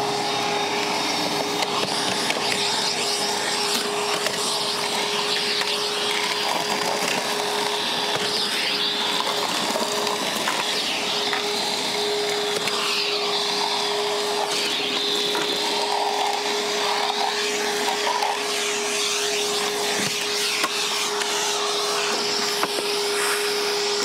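Milwaukee M12 FUEL 1.6-gallon cordless wet/dry vacuum running steadily on a full 12-volt battery: a constant motor whine over the rush of air.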